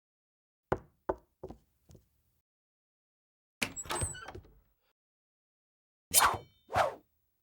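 Isolated cartoon sound effects: four knocks in quick succession, each fainter than the last, then a short, denser noisy effect lasting about a second, and two louder hits near the end.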